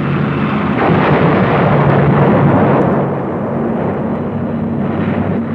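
Continuous rumbling roar of a dubbed-in air-attack sound effect over a low steady drone, loudest about a second in and easing slightly after three seconds.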